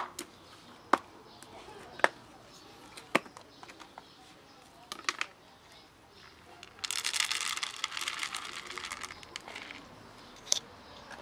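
Four sharp plastic clicks about a second apart as a plastic food box is opened. About seven seconds in comes a loud rattle of dry cat kibble poured into the plastic box, lasting about three seconds.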